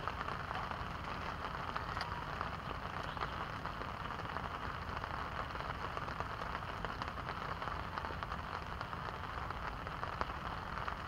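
Steady rain falling on the pond, an even hiss made of many small drop ticks.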